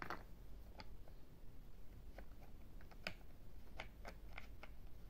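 Toy screwdriver turning a screw in a plastic take-apart toy truck: irregular light plastic clicks and taps, sparse at first, then a quicker run of them in the second half.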